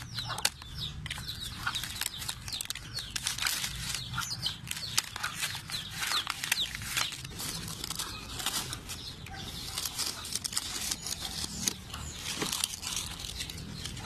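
Dry, papery bird's nest fern fronds crackling and rustling as hands handle and pull them away, a dense, irregular run of crisp crackles.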